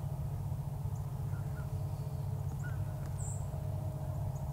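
Outdoor field ambience: a steady low rumble with a few faint, short bird calls scattered through it.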